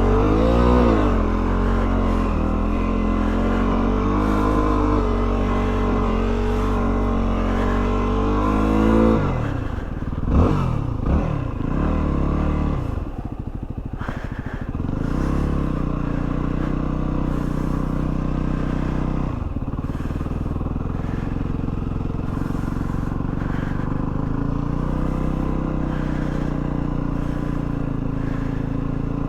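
Yamaha WR250R's single-cylinder four-stroke engine running under way at steady revs, dropping off about nine seconds in, with a few quick throttle blips before it settles back to a steady pull.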